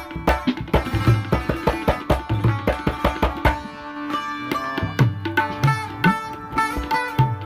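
Instrumental music: a quick hand-drum rhythm under plucked string melody. The drumming thins out briefly around the middle, then picks up again.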